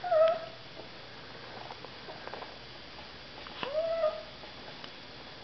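Small toy dog whining twice to beg for food: a short whine at the start, then a longer one about three and a half seconds in that rises in pitch and holds.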